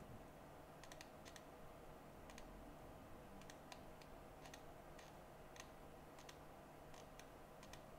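Near silence: faint room tone with a steady low hum, broken by light, sharp clicks at irregular intervals, roughly two or three a second at most.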